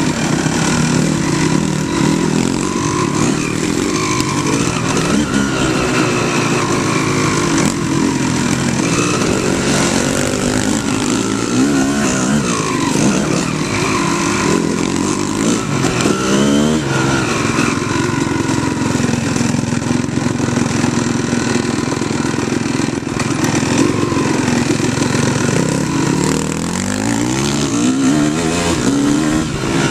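Off-road motorcycle engine running while riding a trail, the throttle opening and closing so the engine pitch rises and falls, with quick climbing revs about halfway through and again near the end.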